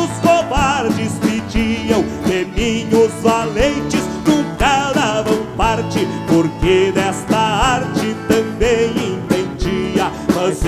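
Live band playing a gaúcho folk song: accordion, acoustic guitars and electric bass over a steady beat, with a wavering melody line on top.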